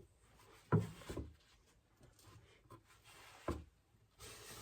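Pencil rubbing on a wooden board while marking screw-hole crosses, with a few light knocks of the wood or pencil, and a soft hiss from near the end.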